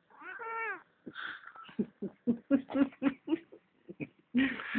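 Domestic cat meowing in answer to being coaxed: one drawn-out meow that drops in pitch at the end. It is followed by a quick run of short, clipped sounds.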